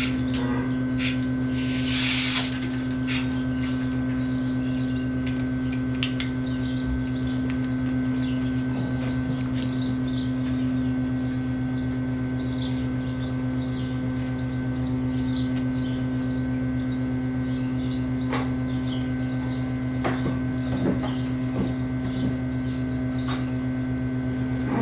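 Tractor engine running at a steady speed, a low, even drone, with a short hiss about two seconds in and a few faint rattles and squeaks.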